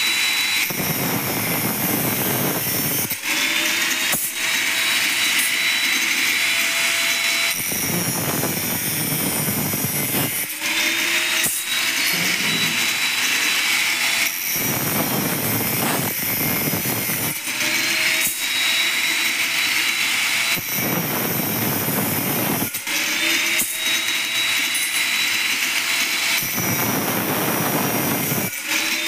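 Angle grinder with a cutting disc cutting a flat iron strip in about five bites of two to three seconds each. The harsh grinding noise of the disc in the metal alternates with the motor's free-running whine, which climbs back up in pitch each time the disc comes off the cut.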